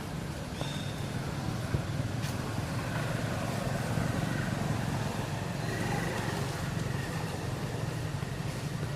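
Steady low rumble of a motor running, with a few faint short high calls or chirps over it.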